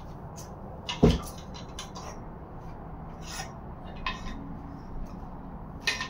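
Metal clanks and knocks from a 2015 Kia Soul 1.6 GDI engine block with its torque converter attached as it is gripped and tilted on a concrete floor. One sharp loud clank comes about a second in, followed by a few lighter knocks.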